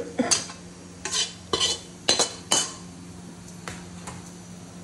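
A steel spoon scraping and knocking against a metal kadhai as cooked spice masala is scraped out onto a steel plate. There is a quick run of sharp clinks and scrapes in the first two and a half seconds, then two lighter taps later on, over a steady low hum.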